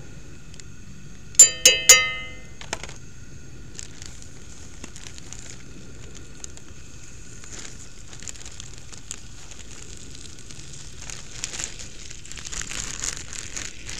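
Chicken legs sizzling in hot oil in a cast iron skillet, a steady crackle that grows louder and rougher near the end. About a second and a half in come three quick metallic clinks, each ringing briefly.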